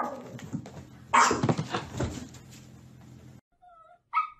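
Small dog howling and whining in several bouts. Near the end, one short high yip.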